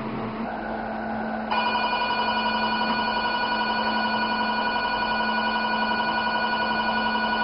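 Velure S5 532 nm diode laser's emission tone: a steady electronic beep of several pitches with a fast flutter, coming on about a second and a half in and holding while the green beam fires, over a low steady hum.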